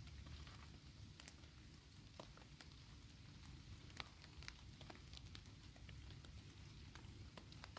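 Faint, irregular pattering of raindrops, with scattered sharp ticks over a low rumble.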